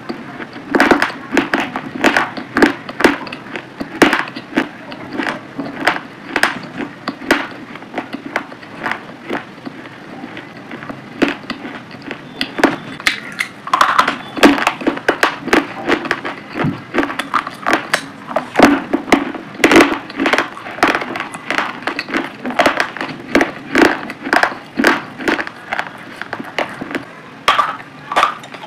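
Close-miked chewing of pomegranate arils: a steady run of crunches and clicks, several a second, as the arils and their seeds are bitten.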